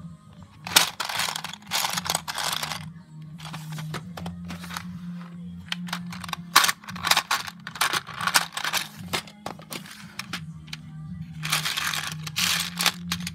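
Loose plastic Lego pieces clattering and rattling against each other and a plastic storage drawer as a hand rummages through them, in four bursts of a second or two with scattered clicks between.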